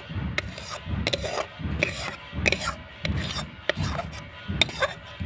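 A spoon scraping thick cooked rosella pulp out of a metal karahi into a steel bowl: repeated rasping strokes, a little more than one a second.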